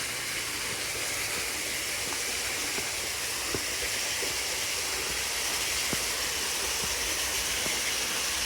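Water rushing steadily at a canal staircase lock, a continuous hiss of falling water.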